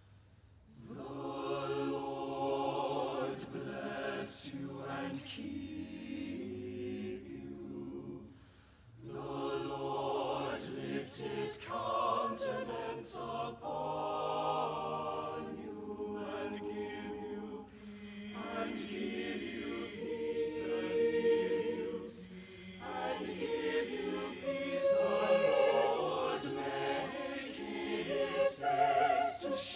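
Mixed-voice chapel choir singing a choral blessing, beginning about a second in and moving in sung phrases with a brief breath break about eight seconds in.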